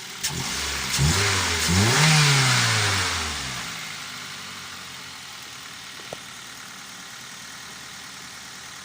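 Toyota Avanza's K3 four-cylinder petrol engine revved up twice in quick succession, then dropping back to a steady, quiet idle. It runs without the abnormal noise it had before, now that the cylinder head has been refitted.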